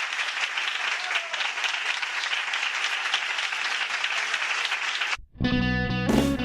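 Audience applauding, breaking off about five seconds in as a song with guitar starts.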